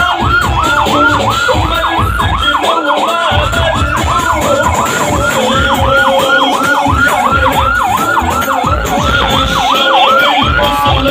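Vehicle siren in a fast yelp, its pitch sweeping up and down about three times a second, stopping just before the end.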